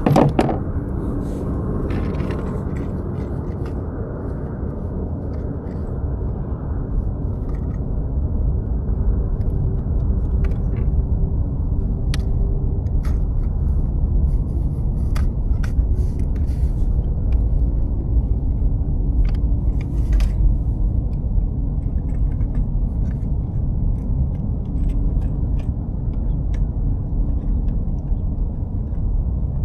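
Wind buffeting the microphone: a steady low rumble that grows heavier a few seconds in, with scattered light clicks and taps over it.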